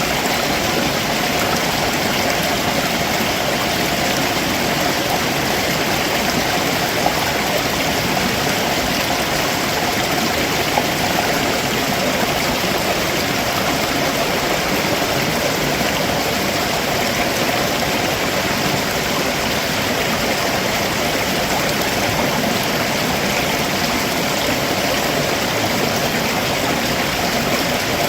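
Stream water rushing and splashing over rocks below a waterfall, a steady, unbroken wash of noise.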